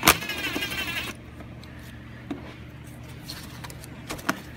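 A sharp click, then a wavering rubbery squeak lasting about a second as the rubber air-intake tube is twisted loose on the throttle body of a GM 5.3L V8, followed by a few light clicks of handling.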